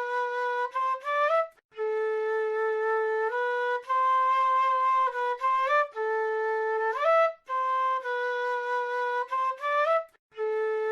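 South American flute playing a slow solo melody of held notes, phrases ending with a short upward slide and broken by brief pauses three times.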